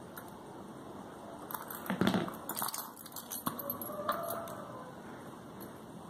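A bunch of keys on a keyring jangling and clinking as a car key remote fob is handled and turned over, in a cluster of rattles and clicks from about one and a half to four and a half seconds in.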